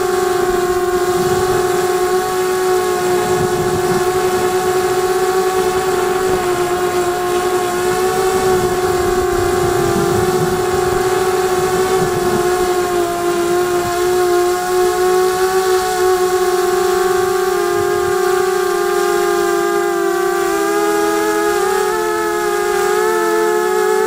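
QAV250 racing quadcopter's brushless motors and propellers whining steadily at a high pitch with a stack of overtones. Near the end the pitch wavers and splits into several close tones as the motors change speed.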